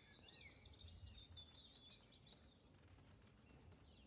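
Near silence: faint background room tone, with a few faint high chirps in the first second or so.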